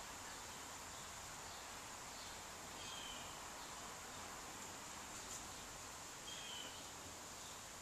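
Faint outdoor ambience: a steady high-pitched insect drone, with a short bird call twice, a few seconds apart.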